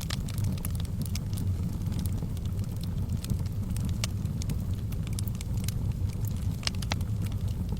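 Fire burning in a fireplace: a steady low rumble of flames with irregular crackles and pops, several a second, a few sharper snaps about four seconds in and again near the end.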